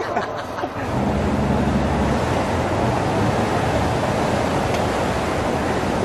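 Steady rush of water and wind as a tour boat motors along, with a low engine hum underneath, plainest in the first second or two. The sound sets in about a second in.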